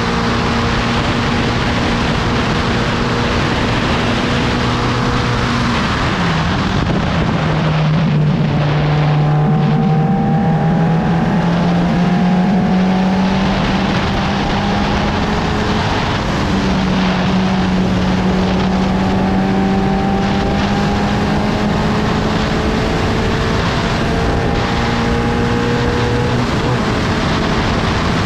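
Onboard sound of a 750 Formula open-cockpit racing car at speed, with heavy rushing noise. The engine note holds steady, drops sharply about six seconds in, then climbs slowly for most of the rest, with brief dips near the middle and near the end.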